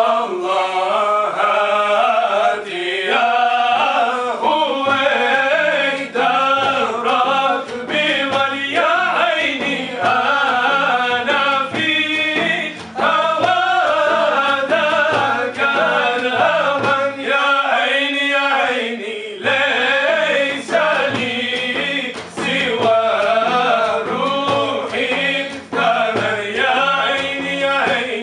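A group of men singing inshad, Islamic devotional song, together.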